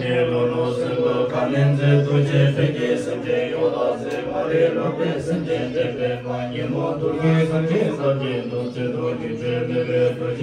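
Chanted vocals over a steady drone, continuing without a break.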